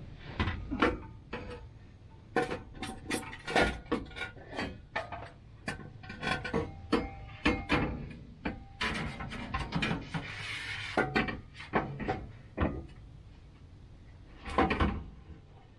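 Exhaust pipe with muffler attached being worked over the skid plate into place: a long string of irregular knocks and clanks, with a longer scraping stretch about ten seconds in.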